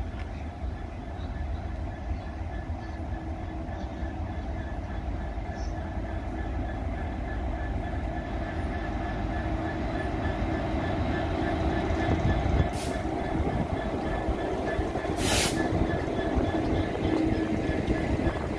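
GB Railfreight Class 66 diesel locomotive 66783 passing, its two-stroke V12 engine running and growing louder as it draws near, with wheels rolling on the rails. Two short, high-pitched hissing bursts come about two-thirds and four-fifths of the way through.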